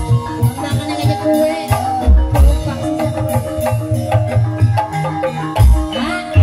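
Gamelan music accompanying an ebeg horse-trance dance: deep hand-drum beats under a running melody of struck, pitched keys.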